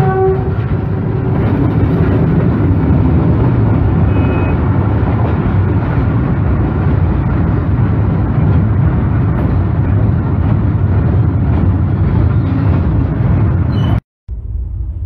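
Freight train passing at close range: a train horn's last note dies away in the first half second, then a loud, steady rumble and clatter of the wagons rolling by. Just after 14 s the sound cuts out abruptly and a quieter, duller rumble follows.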